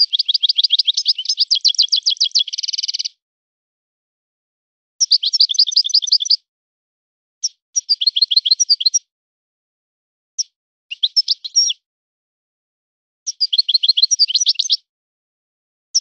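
European goldfinch singing: several phrases of fast, rapidly repeated twittering notes, separated by pauses of a second or two. The first phrase, about three seconds long, is the longest.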